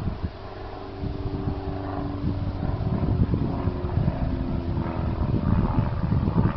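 A steady engine drone with a slightly shifting pitch, under a low, gusty rumble of wind on the microphone that gets louder about a second in.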